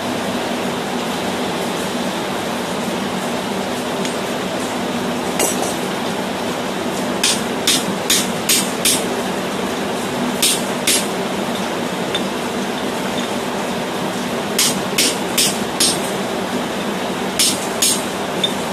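Hand-hammer blows on a steel tool set in the eye of a red-hot hammer head, driving it in to open the eye. The blows come in short runs of two to five sharp strikes with pauses between, over a steady background hiss.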